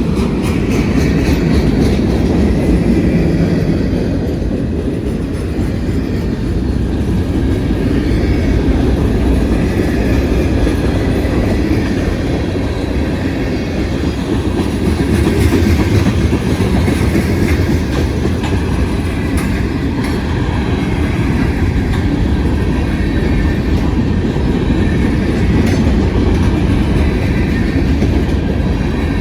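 Long freight train rolling past close by: a steady, loud rumble of the cars with wheels clattering over the rail joints.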